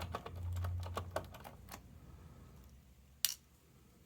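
Small clicks and taps of screws being taken out of the mini PC's bottom panel with a screwdriver, with a low hum under the first second and one sharper click about three seconds in.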